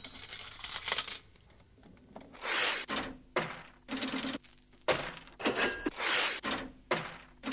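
Short bursts of metallic clinking and rattling, about one a second from a couple of seconds in, some followed by a brief high ringing tone.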